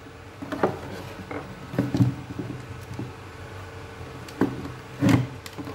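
Plastic housing of a clock radio being handled and shifted by hand, giving a handful of scattered clicks and knocks.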